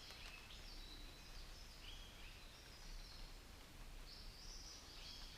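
Faint bird calls: short, high, steady notes that repeat and step up and down in pitch, over quiet forest background hiss.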